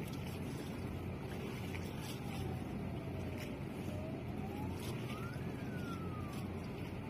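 Steady low rumble of harbour ambience at night, with a faint wailing siren-like tone that slowly falls, rises to a peak about two-thirds of the way through, then falls again.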